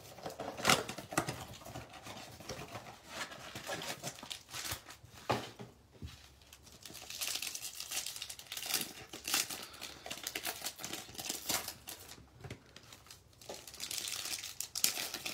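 A cardboard blaster box of trading cards is opened with a few sharp clicks and scrapes, then a foil trading-card pack wrapper crinkles and tears as it is opened, in stretches from about halfway through and again near the end.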